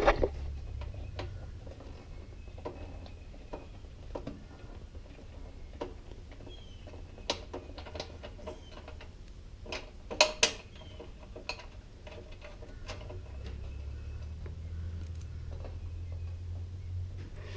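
Wrench and ratchet clicking and clinking on metal bolts as they are undone on a Briggs and Stratton riding-mower engine. There is a cluster of louder clanks about ten seconds in, over a low steady hum.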